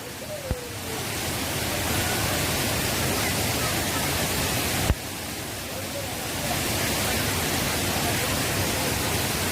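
Mountain stream water rushing steadily over rocks, with a short knock about five seconds in.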